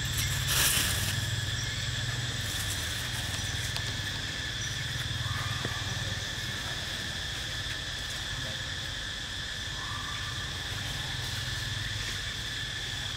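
Steady insect drone in the forest, a continuous high, even whine with overtones, over a low rumble; a short rush of noise comes about half a second in.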